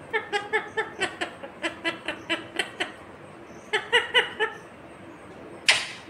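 Indian ringneck parrot making a rapid run of short chattering notes, about five a second, then a shorter burst of notes in the middle and one short harsh squawk near the end.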